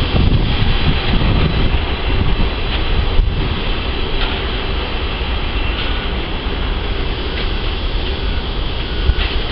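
Steady jet engine noise from an Airbus A380 rolling out on a wet runway after touchdown, easing slightly after about four seconds.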